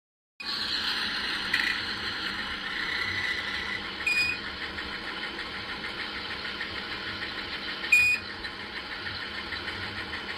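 Bus engine running steadily, cutting in about half a second in, with a short high electronic beep twice, about four seconds apart.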